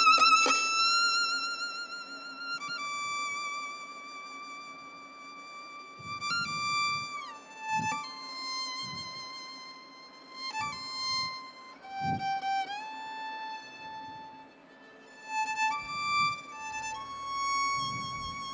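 Solo violin playing slow, sustained high notes that slide down from one pitch to the next, with vibrato at the start. A few soft low thumps sound underneath.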